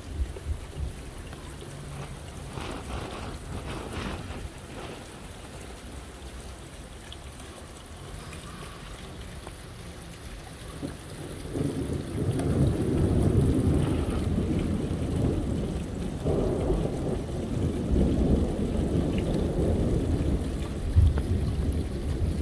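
Steady rain falling, then about halfway through a long, low rumble of thunder builds and keeps rolling, with a brief louder peak near the end.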